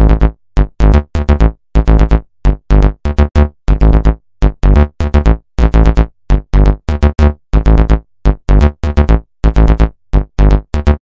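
Upbeat electronic background music made of short, choppy synthesizer notes with a deep bass under each; it cuts off suddenly at the end.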